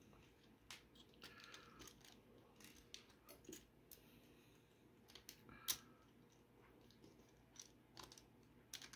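Faint, scattered clicks and taps of small 3D-printed plastic gears and parts being handled and fitted together, one a little louder just past the middle.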